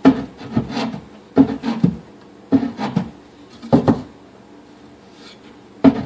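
Wooden kitchen cabinet door, with a shelf mounted on its inside, being swung open and shut by its knob. There are four bursts of wooden knocking and rubbing in the first four seconds, a pause, then another knock at the end.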